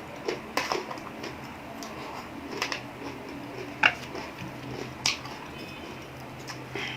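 Close-up eating noises: a handful of sharp, irregular crunches and clicks while chewing, the loudest about four seconds in.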